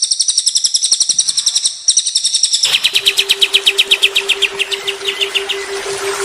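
Songbirds singing in rapid trills: a very high, fast trill that cuts off abruptly about two and a half seconds in, replaced by a lower rapid trill over hiss and a steady low hum, which breaks off briefly near the end and starts again.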